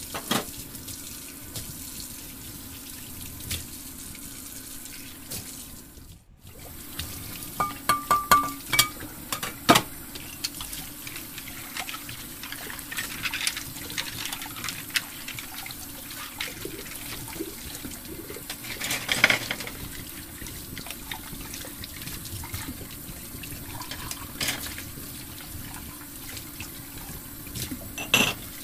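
Small plastic toy-kitchen parts clicking and tapping as they are fitted and pressed into place: a quick run of sharp clicks about a third of the way in, another cluster about two-thirds in, and a few more near the end, over a steady hiss.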